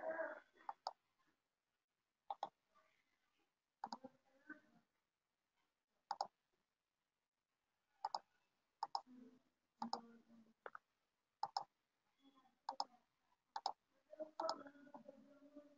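Computer mouse button clicking: about a dozen single, sharp clicks spaced irregularly a second or so apart.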